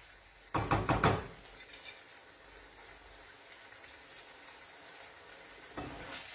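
A few quick knocks of a wooden spoon against the pan as it is set down, about half a second in. The frying pan of pasta sizzles faintly after that. Near the end comes a short sliding rush as the pasta is tossed in the nonstick pan.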